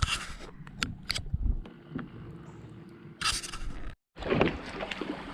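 Scraping, scratching and clicking handling noises, with a short hissy scrape just past three seconds in and a brief dead gap about four seconds in.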